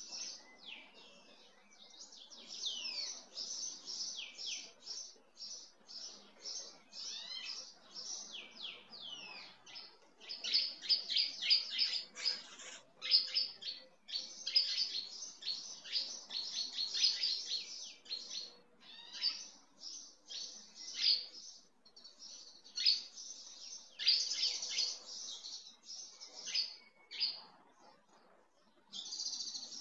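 Small birds chirping in quick runs of short, high, down-sliding notes, busiest and loudest in the middle stretch.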